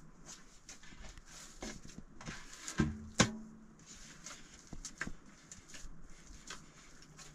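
Irregular light knocks and clicks, with two louder knocks close together about three seconds in.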